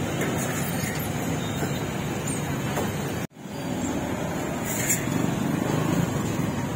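Street traffic noise: a steady hum of passing motor vehicles. The sound cuts out for an instant about three seconds in, then comes back.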